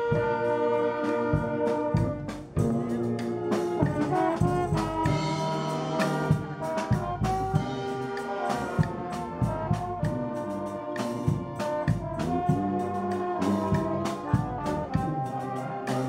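Brass band playing a tune, held brass notes over a steady drum beat, with a short drop in level about two and a half seconds in.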